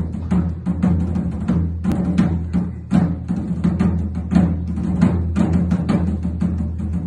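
Slåttetromme, a Norwegian rope-tensioned side drum, played solo in a steady march rhythm of about three or four strokes a second.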